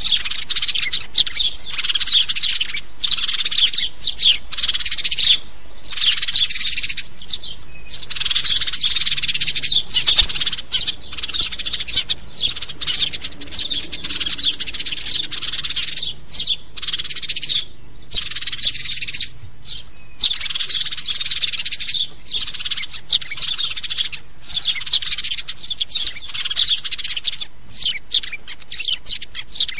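House sparrows chirping, a dense run of quick, overlapping chirps broken by short pauses.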